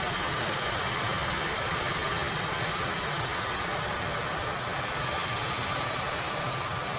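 Boeing C-17 Globemaster III's four turbofan engines at low taxi thrust as the transport rolls past: a steady jet roar with a thin, steady high whine over it.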